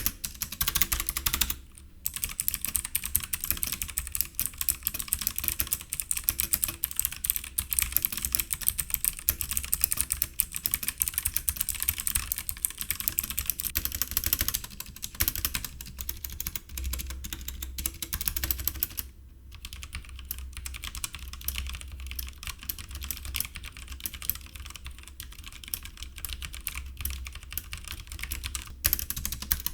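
Fast typing on a Logitech G PRO X mechanical keyboard with Kailh-made GX switches: a dense run of keystroke clicks, with brief pauses about two seconds in, around the middle and about two-thirds through.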